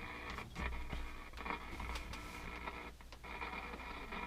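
A 1967 GE-branded AM clock radio tuned between stations: steady static and hum with faint whistling tones, and a few short crackles.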